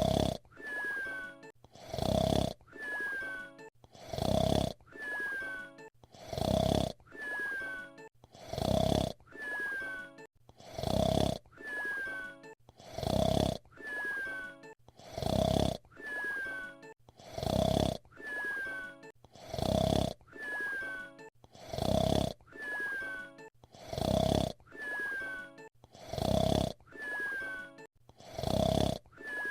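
Fred Flintstone's cartoon whistle-snoring, voiced by Henry Corden: a loud snore followed by a short whistle falling in pitch, repeating in an even cycle about every two seconds.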